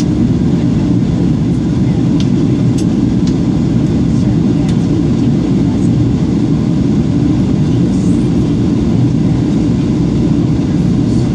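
Steady, low cabin drone of a jet airliner on approach, heard from inside the cabin: engine and airflow noise with no change in level.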